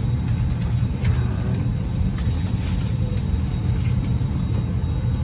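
Steady low rumble of an airliner cabin at the gate.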